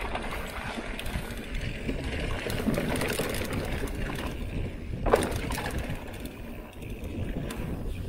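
Trail noise of a mountain bike ridden over dirt singletrack: wind rumbling on the microphone, with the tyres on the dirt and the chain and frame rattling over bumps, and one sharp knock about five seconds in.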